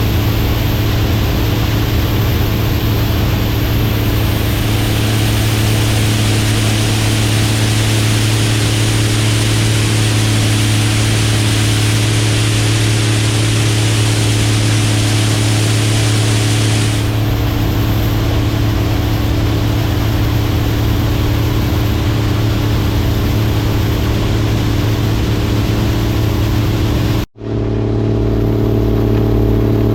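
Combine harvester running steadily, a loud engine and machinery drone with hiss over a low hum. The sound cuts out for an instant near the end and comes straight back.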